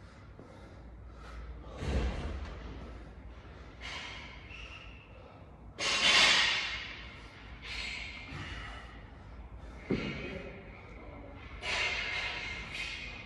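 A man breathing hard after exertion: loud, rough breaths about every two seconds, the loudest about six seconds in. A short knock near ten seconds.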